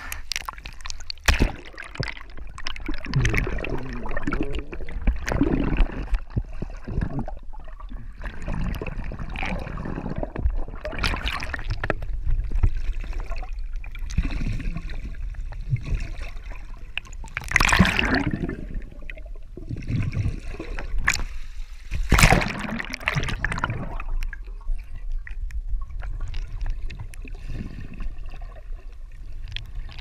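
Seawater sloshing, splashing and gurgling around a camera at the waterline as it dips in and out of the sea, over a steady low underwater rumble. A few louder rushes of splashing and bubbles come, the strongest about halfway through and again a few seconds later.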